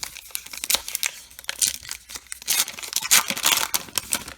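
Baseball card pack wrapper being torn open and crinkled: an irregular run of sharp tearing and crackling rustles that dies away near the end.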